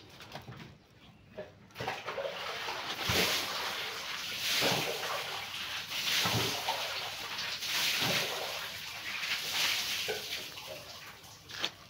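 Gritty potting soil mix poured from a scoop into a small cement bonsai pot, in several swells of trickling grit.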